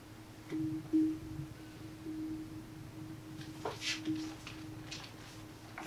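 A single steady tone, swelling and fading slightly, with a few soft clicks about three and a half to five seconds in.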